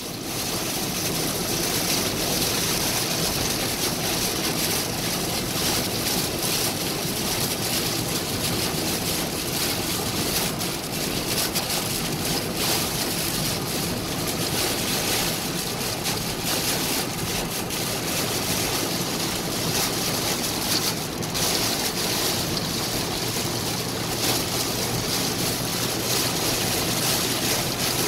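Heavy downpour pelting a moving car's roof and windshield, heard inside the cabin: a steady, dense rushing noise of rain and wet road.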